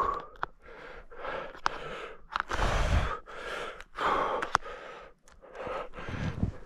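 A hunter's heavy, excited breathing close to the microphone, a run of hard breaths in and out about once a second, with a few light clicks between them. The loudest breath comes about three seconds in.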